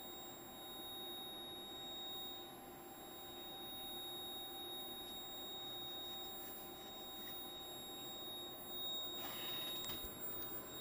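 A steady high-pitched electronic whine, one unchanging tone with fainter higher overtones, over faint hum from the bench equipment. A short burst of noise comes about nine seconds in.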